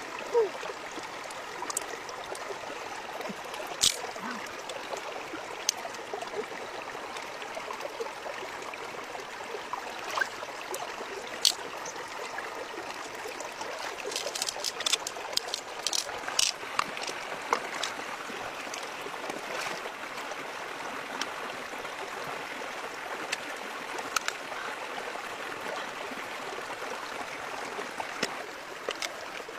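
Shallow stream running steadily over rocks, with scattered sharp clicks and taps from pearls and shells being handled, most of them together about halfway through.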